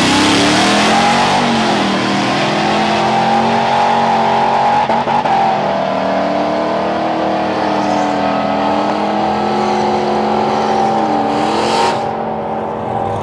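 Ram 1500 pickup's engine at full throttle launching off the drag-strip start and accelerating away down the track. The pitch climbs and drops back at the gear changes.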